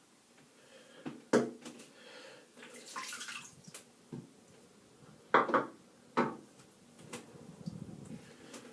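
Water splashing and dripping at a sink, with a few sharper splashes about one and a half, five and a half and six seconds in, typical of rinsing after a shave.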